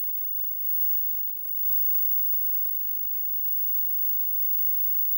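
Steady electrical mains hum with a few faint steady tones above it, from a 1966 Philco valve television chassis standing powered up.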